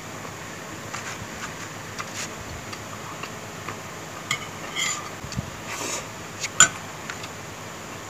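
Spoon and wooden chopsticks clicking and scraping against a plate of rice and boiled chicken, with eating and chewing sounds; scattered separate clicks, the sharpest about six and a half seconds in.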